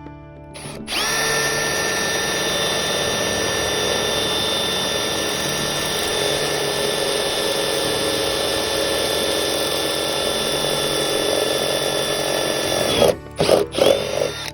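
Power drill running at a steady speed for about twelve seconds, with an even whine, then stopping and giving a few short trigger pulses near the end.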